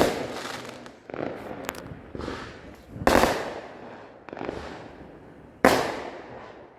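Fireworks going off around the neighbourhood: a series of sharp bangs, each trailing off in a rolling echo. The loudest come about three seconds in and near the end, with smaller pops between.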